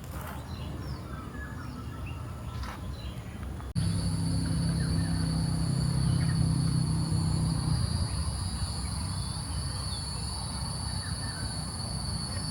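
Outdoor ambience with birds chirping. After an abrupt cut about four seconds in, a steady high-pitched insect drone and a low rumble take over, with a few chirps still above.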